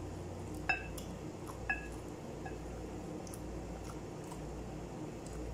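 A pressed-glass bowl clinks twice, about a second apart, each with a short ring, as food is picked out of it by hand, then once more faintly. A steady low hum runs underneath.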